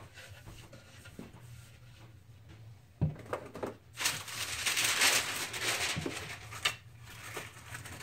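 Packing sheet rustling and sliding as it is handled inside a cardboard box, with a few knocks of flat-pack desk panels against the box. The rustling is loudest for about two seconds after the first knocks.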